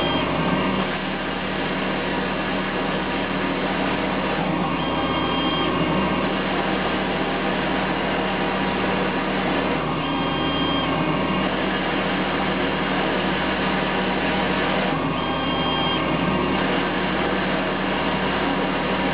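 Emco Turn 120 CNC lathe running under power with a steady mechanical hum. A short, higher whine comes in about every five seconds, a repeating cycle of machine moves.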